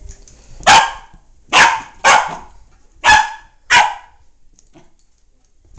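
A Welsh terrier puppy barks in short, loud yaps, five in under four seconds and one more at the very end, excited play barking at a light it is chasing.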